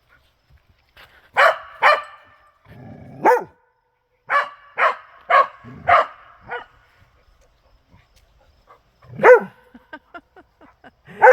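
A dog barking at a deer: about nine sharp, loud barks in uneven bursts, the last after a pause, followed by a few short, faint whimpers.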